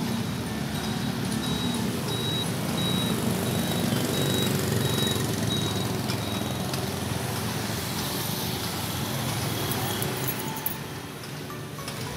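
Street traffic: motorbikes and cars passing on a city road, a steady rumble of engines and tyres. A faint high beep repeats about every half second through the first half.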